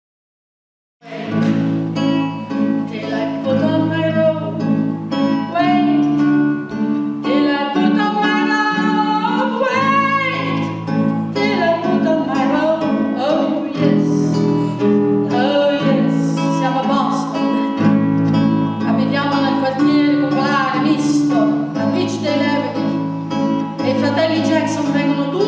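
A woman singing an Italian folk song to her own classical guitar accompaniment. The guitar and voice start together about a second in, after near silence.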